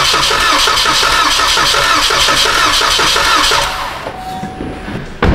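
The starter cranks a 2014 Cadillac CTS's 2.0-litre turbo four-cylinder without it starting, with an even pulsing beat of the compression strokes, and stops about three and a half seconds in. This is a cranking compression test on cylinder one, which reads only about 50 psi, far below the 150–180 psi expected: that cylinder has badly low compression. A brief sharp thump follows near the end.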